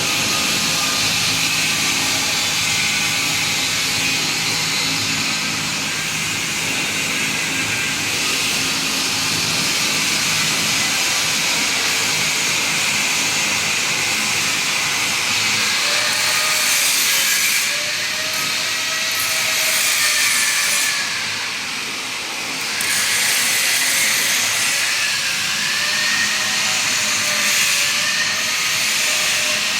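Steady loud hissing noise with faint wavering tones in it, dipping briefly about twenty-one seconds in.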